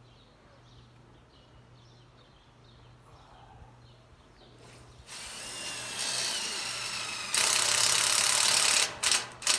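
Impact driver driving a screw. About five seconds in, the motor spins up with a rising whine. About two seconds later it starts hammering, louder, for a second and a half, then gives a few short trigger bursts near the end.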